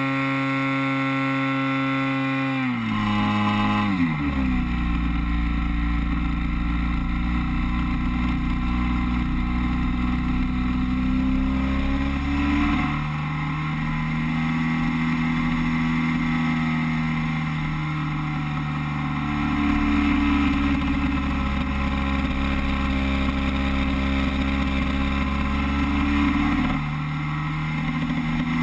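Single-cylinder two-stroke gasoline engine (DLE 30) of an RC Beaver floatplane in flight, heard from on board. It is throttled back about three seconds in, its pitch dropping, then runs on at lower speed with small rises and falls in pitch.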